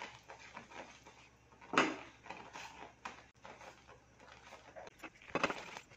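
Silicone spatula stirring thickening strawberry jam in a pan: irregular soft scraping strokes, with louder ones about two seconds in and near the end. The jam is starting to reach its set consistency.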